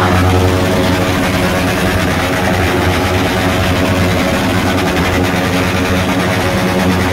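Motorcycle engine held at high revs, running steadily through a stationary burnout as the rear tyre spins on the paving stones.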